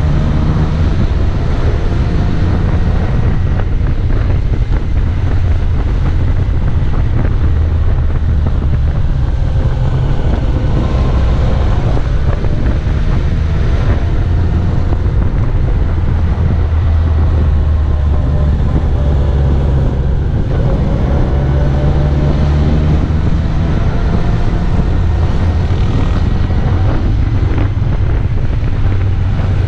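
Wind rushing over the microphone of a motorcycle-mounted camera, over the steady running of the motorcycle's engine, its pitch rising and falling through the bends.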